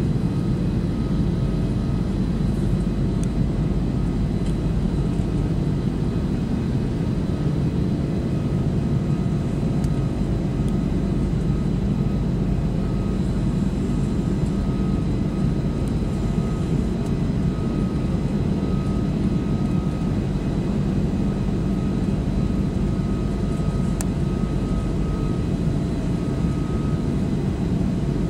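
Cabin noise of an Airbus A340-500 in its climb after takeoff: its four Rolls-Royce Trent 500 engines and the airflow make a steady, low rumble heard inside the cabin, with a faint high whine above it.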